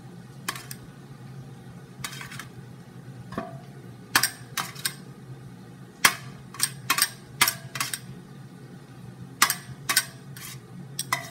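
A metal spoon scraping and clinking on a stainless steel tray as cooked tilapia flesh is picked off the bones: clusters of sharp clicks with pauses between them.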